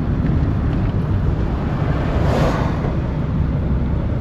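Steady road and engine rumble of a moving car, with wind buffeting the microphone; a brief louder rush of noise swells about two seconds in.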